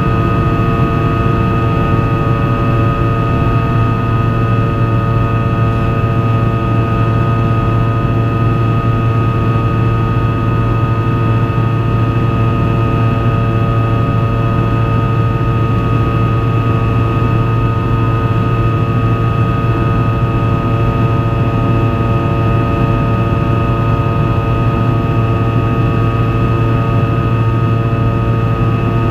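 Rolls-Royce Tay turbofan of a Fokker 100, heard from inside the cabin beside the rear-mounted engine, running steadily in flight. The sound is a constant, unchanging drone: a strong low hum with several steady whining tones above it.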